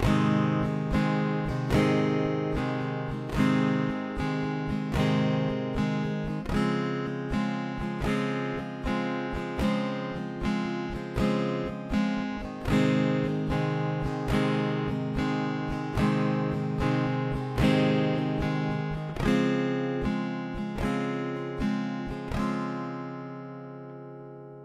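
Background music: an acoustic guitar strumming a steady rhythm of ringing chords. The last chord rings out and fades near the end.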